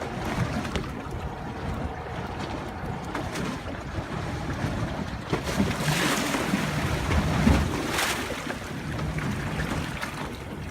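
Wind buffeting the microphone and water washing against a small fishing boat at sea, with louder swishes about six and eight seconds in.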